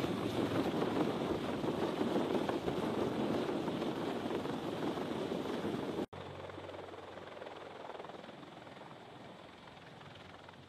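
CH-53 heavy-lift helicopter hovering close overhead with a slung load: loud, dense rotor and turbine noise. It cuts off abruptly about six seconds in, and a quieter, more distant helicopter sound follows and slowly fades.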